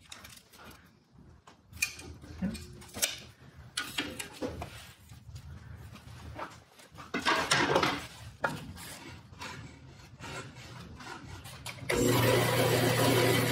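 Intermittent scraping, rubbing and clicks of hand work on a band saw's blade and guides during setup. About twelve seconds in, a band saw's motor starts up abruptly and runs with a steady hum.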